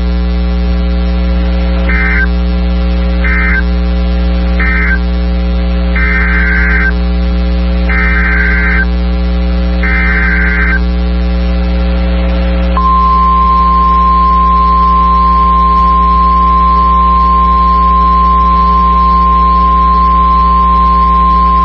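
Emergency Alert System data tones between two weather warnings. Three short buzzy bursts end the flash flood warning, and three longer bursts give the header of the next alert. About halfway through, the steady single-pitch weather radio alarm tone starts and holds to the end. A constant electrical hum runs underneath.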